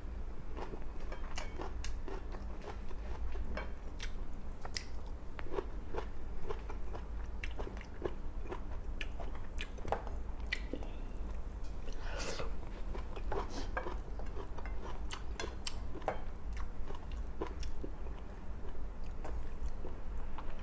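Close-miked eating: a person biting and chewing a meal of grilled milkfish, rice and raw cucumber-lettuce-tomato salad, with many short crunches and mouth clicks over a steady low hum.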